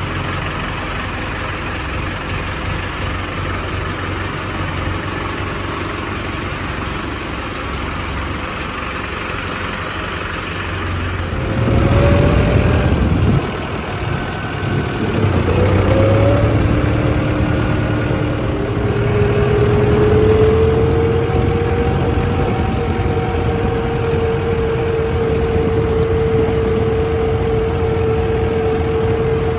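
Mahindra Arjun Novo 655 DI tractor's four-cylinder diesel engine idling steadily, then revving up about twelve seconds in. After a brief drop it runs louder while the tractor is driven, with a steady high tone held through the last ten seconds.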